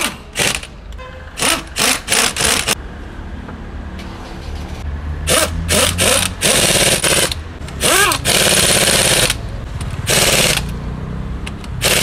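Pneumatic impact wrench driving the wheel bolts of a Mercedes-Benz W124, running in bursts: several short ones in the first three seconds, then longer bursts of about a second each from about five seconds in.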